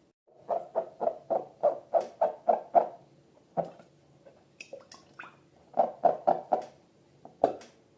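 Slime being squeezed and squished in quick squelches, about four a second, starting about half a second in. After a short pause there are a few fainter, higher squelches, then another run of squelches near the end.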